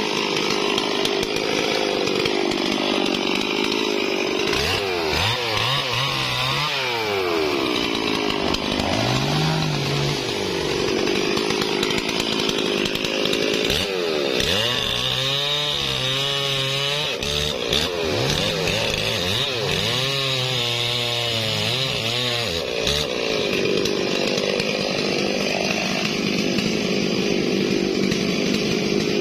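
Stihl MS440 two-stroke chainsaw running and cutting through a felled durian trunk. Its engine pitch rises and falls several times in the middle.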